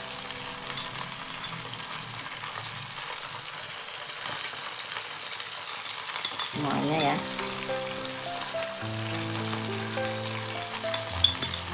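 Honey-sauced shrimp frying in a nonstick pan: a steady sizzle, with sauce being spooned over them. A few sharp clicks come near the end.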